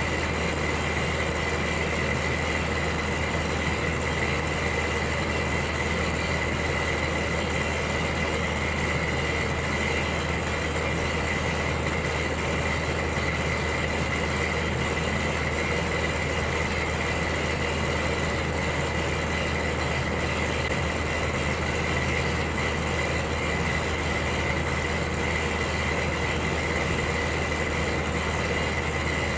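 Electric heater running steadily: a constant low hum under an even whoosh, with a faint steady whine, unchanging throughout.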